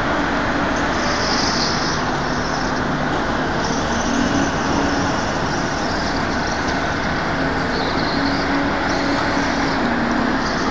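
Engine running steadily over a continuous noisy rumble, its low hum wavering slightly in pitch.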